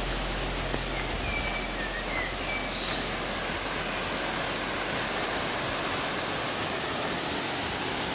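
Steady, even rushing hiss of falling water from waterfalls, with a few short high bird chirps about one to three seconds in.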